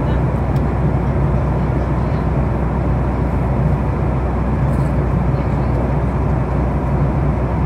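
Steady cabin noise inside a Boeing 737 MAX 8-200 in cruise: the low drone of its CFM LEAP-1B engines under an even rush of air along the fuselage.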